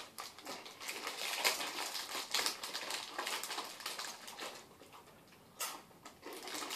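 Foil snack bags of Mini Takis rolled tortilla chips crinkling and rustling as hands dig into them, mixed with the crunch of chips being chewed, in irregular bursts.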